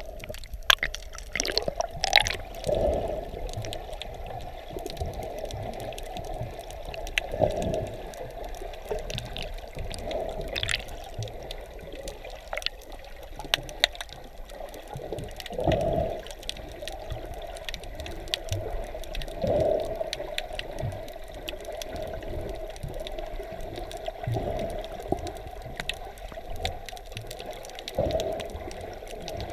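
Muffled underwater sound of water moving around a camera held below the surface while snorkeling, with a few louder swells now and then and scattered faint clicks and crackles.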